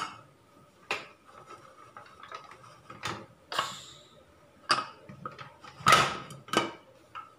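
Pressure cooker being handled to open it, its pressure already released: a string of separate metallic clicks and clanks from the weight and lid, about seven in all, the loudest about six seconds in.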